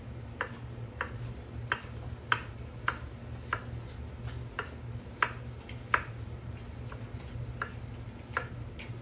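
Chef's knife dicing vegetables into small cubes on a wooden cutting board: a steady run of sharp knocks, about one every two-thirds of a second.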